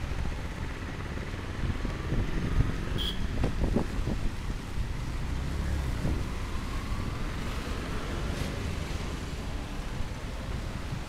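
Street traffic rumbling past, with wind buffeting the microphone. A short high chirp sounds about three seconds in.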